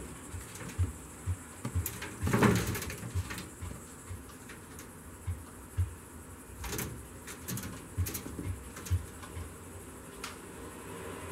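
Baby squirrels scrambling around a wire-mesh cage: irregular light knocks, clicks and thumps as they climb the mesh and branches, with a longer, louder rattling scuffle about two seconds in.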